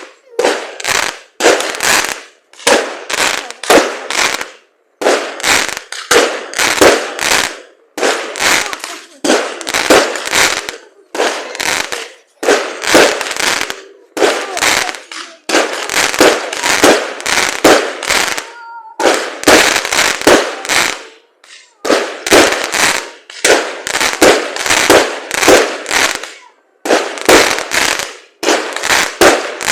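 Fireworks going off: rapid clusters of sharp bangs and crackles, group after group with short pauses between.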